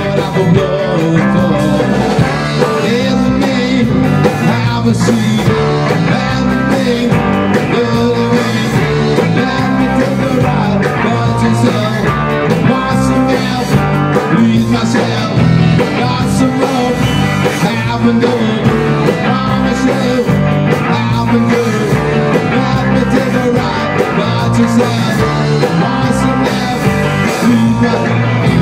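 Rock band playing loud and steady: distorted electric guitars, electric bass and a drum kit keeping a regular beat.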